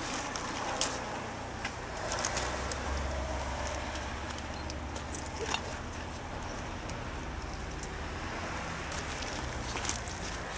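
Open-air ambience during a silent tribute: a steady low rumble with scattered small clicks and rustles.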